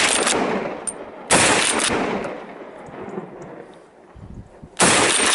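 Hunting rifle shots with a long echo rolling back off the hillsides after each: the tail of one shot at the start, then two more shots, about a second and a half in and near the end.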